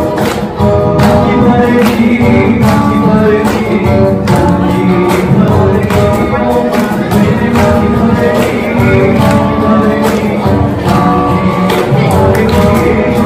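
Live acoustic band music: a strummed acoustic guitar and a steady cajon beat, with a man singing.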